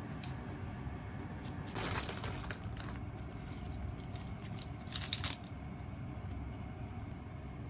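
Crisp lettuce leaves being torn and crinkled by hand, two short crunchy bursts with the second the louder, over a steady low hum.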